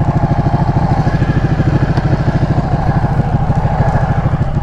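Sport motorcycle engine running at low revs with a fast, steady pulsing beat as the bike rolls to a stop.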